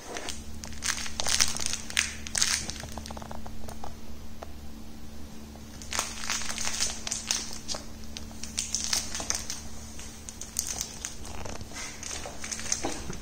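Rattling plush cat toy crinkling and rattling in irregular bursts as a kitten grabs, bites and kicks it. A steady low hum runs underneath.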